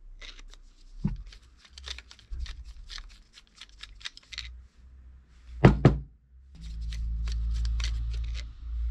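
Screwdriver tips clicking and scraping on a small metal carburetor body as screws are worked, with two sharp knocks about halfway through. A low steady hum runs for about two seconds near the end.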